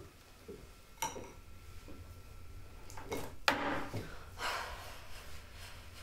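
A light clink of tableware about a second in, then a man's sneeze about three and a half seconds in, sharp and loud, followed by a breathy sniff or exhale.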